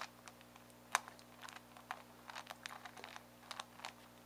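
Megaminx puzzle being turned by hand through a J-perm algorithm: a quick, irregular run of quiet plastic clicks and clacks as its faces turn, with one sharper click about a second in.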